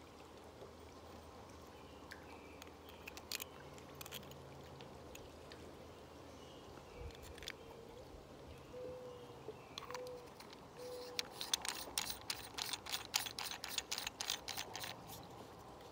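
Hard plastic scuba-mouthpiece parts handled and fitted together: a few light clicks, then, about eleven seconds in, a quick run of plastic-on-plastic clicking, about five a second, as a threaded 1.5-inch adapter is screwed onto a Healthways Hope-Page mouthpiece body.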